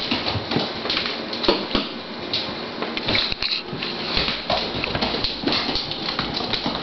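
A Doberman's claws clicking and scrabbling on a vinyl tile floor as she races around in post-bath zoomies. The clicks and knocks come in quick, irregular runs.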